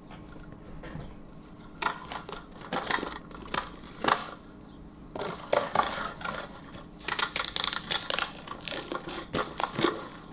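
A cardboard shipping box and its bubble-wrap packing being handled: irregular crinkling and rustling with scattered light knocks and clicks, starting about two seconds in.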